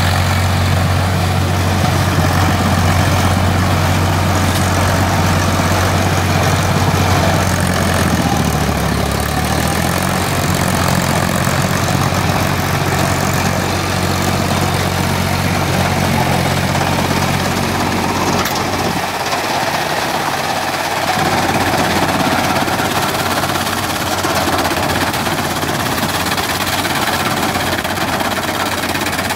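Eicher 557 tractor's diesel engine running steadily under load as it drives a rotary banana-stem cutter that shreds felled banana plants. The engine note shifts about eight seconds in and again near twenty seconds.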